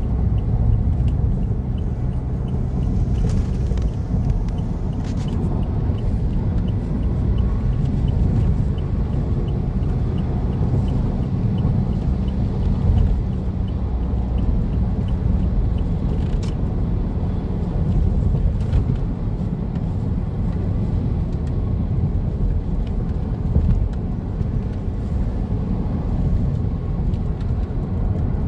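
Toyota Kijang Innova Reborn driving, heard from inside the cabin: a steady low rumble of road and engine noise.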